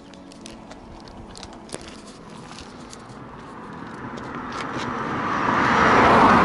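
A road vehicle passing close by: its tyre and engine noise swells steadily and is loudest near the end. Small clicks and knocks sound on top.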